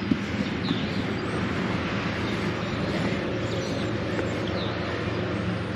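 Steady low motor hum, like a vehicle running, with a few short bird chirps over it.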